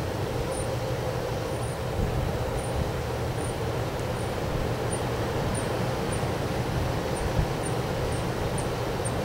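Strong wind blowing steadily, rumbling and buffeting on the microphone with a couple of low thumps. A faint high chirp repeats about once or twice a second behind it.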